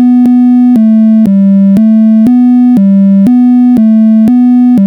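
A micro:bit MakeCode alarm melody of Play Tone notes, a buzzy electronic tone stepping up and down between a few low notes about twice a second. It is the anti-theft alarm going off when the micro:bit is shaken.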